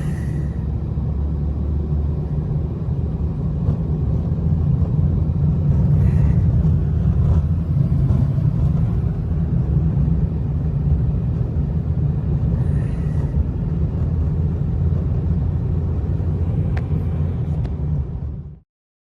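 Storm wind blowing hard, heard as a steady deep rumble that cuts off suddenly near the end.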